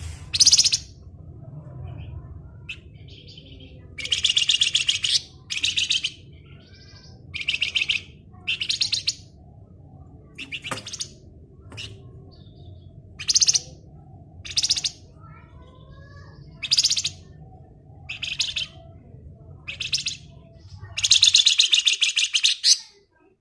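Flamboyan songbird singing in repeated rapid, chattering trills (the 'ngebren' song), about a dozen short high-pitched bursts with two longer ones, over a low steady hum that stops near the end.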